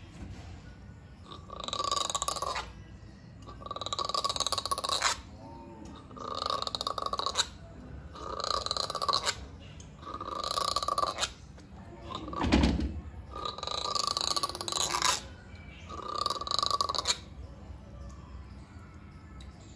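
Gray langur giving a run of harsh, breathy grunts, about one every two seconds, the sounds of an agitated, angry langur. A dull thump sounds about halfway through.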